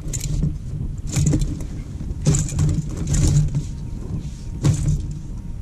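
Wind rumbling on the microphone, with several short bursts of rustling and knocking as the landing net holding a freshly caught pike is handled in the inflatable boat.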